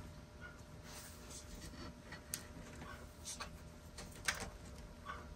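Faint scattered clicks and light taps of small parts being handled on a workbench, with a sharper click about two seconds in and the loudest one a little over four seconds in.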